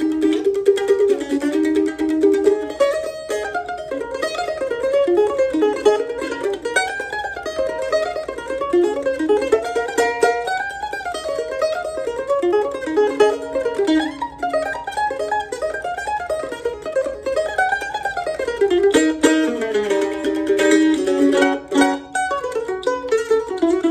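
Weber Road Dog F-style mandolin with a red spruce top and maple back and sides, played solo: quick picked single-note runs that rise and fall through the melody.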